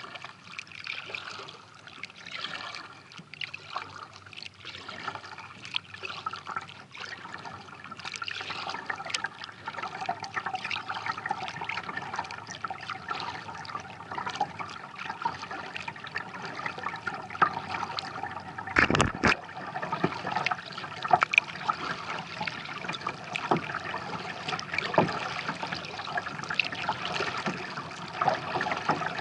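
Water trickling and dripping off a kayak paddle and splashing lightly at the hull as a kayak is paddled across a calm lake, with many small drips and splashes throughout. A brief loud bump about two-thirds of the way through.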